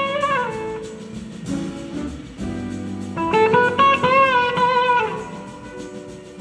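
Live blues-rock band music: an electric slide guitar plays gliding, wavering lead phrases, a short one at the start and a longer, louder one from about three seconds in, over rhythm guitar and drums.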